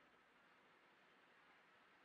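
Near silence: a faint, steady hiss.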